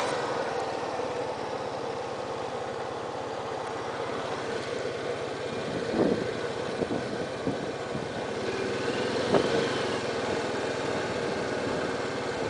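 An engine idling steadily, with two short knocks about six and nine seconds in.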